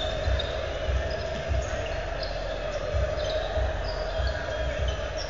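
Basketball being dribbled on the court: repeated low thumps, roughly one every half second with a gap in the middle, mixed with short high sneaker squeaks.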